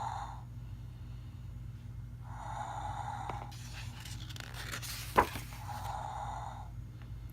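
Sound book's small speaker playing a tinny snoring sound effect: three long snores about three seconds apart. Between the second and third there is a rustle and one sharp click.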